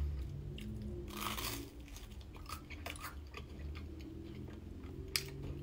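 A mouthful of toast spread with peanut butter and condensed milk being chewed, with a louder crunch about a second in and small wet clicks throughout. A sharp click comes near the end.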